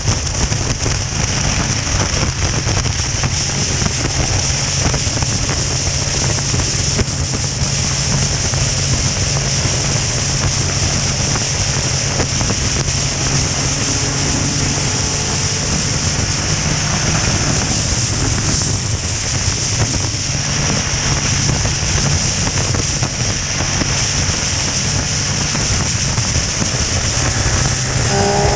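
Motorcycle cruising at steady highway speed: the engine holds a constant low drone under heavy wind rushing over the microphone, with road noise.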